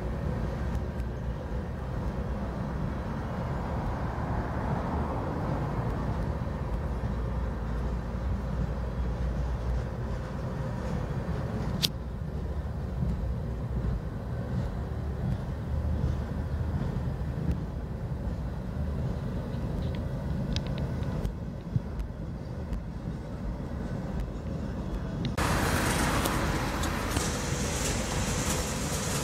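Freight train of boxcars and refrigerator cars rolling past, a steady rumble of steel wheels on the rails, with one sharp click a little before halfway. Near the end the noise turns louder and hissier.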